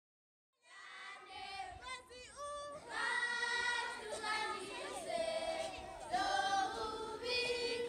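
A group of schoolchildren singing together in chorus. The singing starts just after the opening silence and grows louder about three seconds in.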